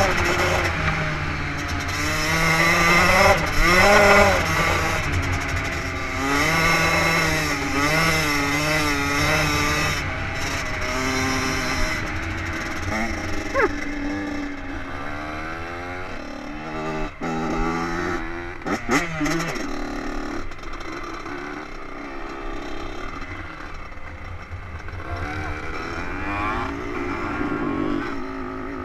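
Two-stroke dirt bike engine revving up and down as the bike rides across rough ground, its pitch climbing and dropping again and again over a steady low rush. There are a few sharp knocks and rattles past the middle.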